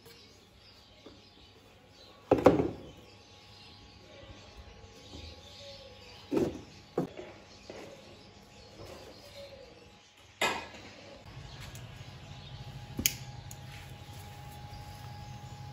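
A few scattered knocks and clatters, the loudest about two seconds in, with a steady low hum setting in about eleven seconds in.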